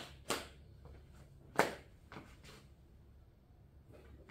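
A few sharp knocks: three in the first two seconds and another right at the end, with quiet workshop room tone between.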